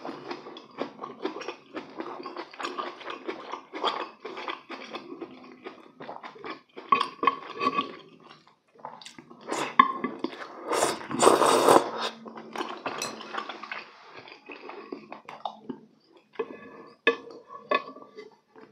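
Close-miked eating of saucy braised chicken: wet chewing and lip smacking, with a louder, longer slurp about two thirds of the way through and a few sharp clicks of chopsticks and a spoon on the dish near the end.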